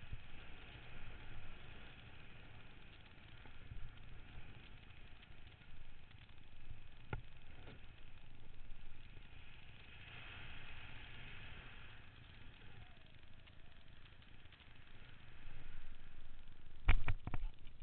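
Wind rushing over a helmet camera's microphone as a BASE jumper glides down under an open parachute canopy, a steady low rumble with a hiss above it. Near the end come a few sharp thuds as the jumper lands on the dirt.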